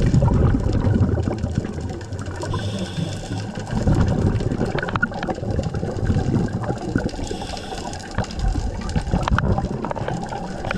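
Underwater scuba breathing heard through a camera housing: a short hiss from the regulator on each inhale, then a rumble of exhaled bubbles, repeating about every four to five seconds.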